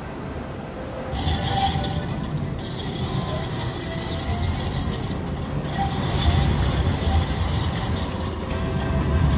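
Outdoor ambience of a busy city tram square: a steady hiss of traffic and crowd noise with mechanical clatter. A tram's rumble builds near the end as it pulls in. About a second in, quieter indoor station-concourse ambience gives way abruptly to the louder street noise.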